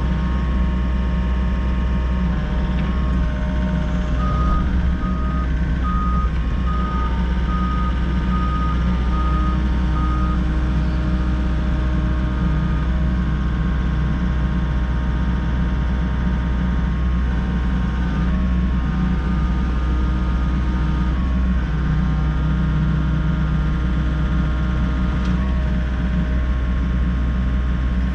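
Volvo EC60E mini excavator's diesel engine running steadily with hydraulics working. A few seconds in, its travel alarm beeps about nine times, roughly one and a half beeps a second, then stops.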